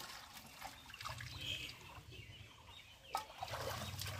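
Pond water sloshing and splashing as a man wades and works his hands through it around a large pot, with a couple of sharp splashes about three seconds in.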